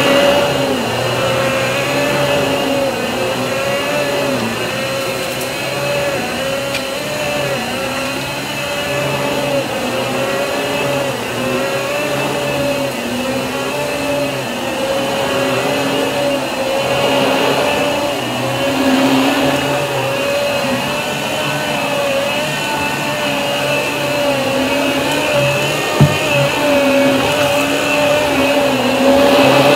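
Riccar Pizzazz canister vacuum running continuously as its floor head is pushed back and forth over carpet, the motor's steady whine wavering slightly in pitch. A single short knock near the end.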